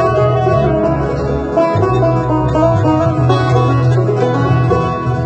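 Banjo picked in a quick run of bright notes, with a steady low bass underneath.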